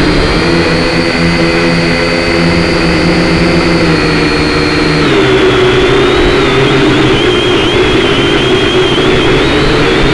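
Syma X5C quadcopter's four small brushed motors and propellers whining, loud and close as picked up by its own onboard camera. The pitch steps up at the start and holds, drops about halfway through, then wavers up and down with throttle corrections as it hovers.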